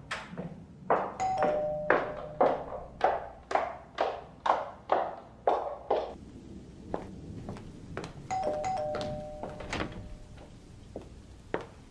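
A doorbell chimes a falling two-note ding-dong twice, about a second in and again about eight seconds in. Under the first chime runs a series of heavy thuds, about two a second, which stops about six seconds in.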